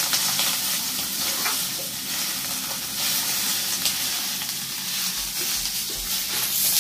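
Food sizzling steadily in a hot steel wok over a gas burner, stirred with a wooden spatula that scrapes the pan now and then.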